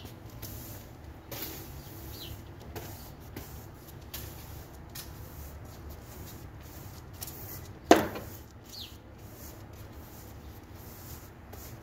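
Steady low background rumble with a single sharp bang about eight seconds in, like a door or cupboard shutting, and two faint short high chirps.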